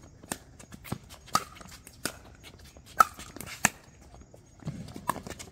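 Pickleball paddles hitting a hard plastic ball in a rally of volleys: a string of sharp pops at an uneven pace, roughly one every half second to a second, the loudest about three seconds in.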